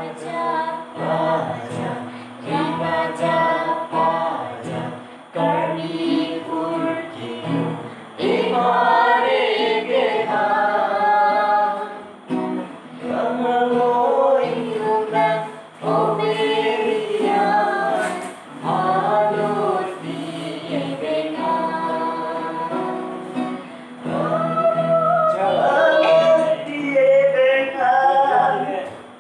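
Acoustic guitar played as accompaniment to live singing, a woman's voice leading, in phrases with short breaths between them.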